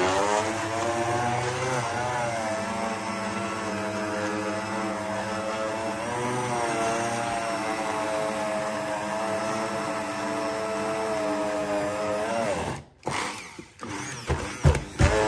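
Braun MultiQuick 9 1200 W hand blender motor running steadily with a whine, its pitch dipping and recovering a few times as it churns a thick, dense mix with almonds. It cuts off about thirteen seconds in, followed by a couple of short knocks near the end.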